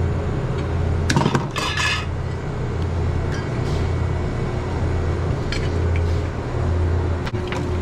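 Ice chunks and metal clinking and scraping as ice is cleared out of a freezer, with a short burst of clatter about a second in and scattered clicks after, over a steady low hum.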